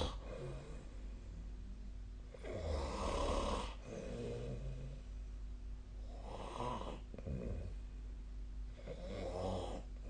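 A person snoring in sleep, with a loud rasping snore about every three seconds, each lasting about a second, and softer breathing sounds between them.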